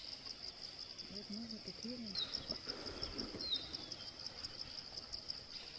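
Insects chirring steadily in a high, pulsing trill, with a few short, falling bird chirps over it.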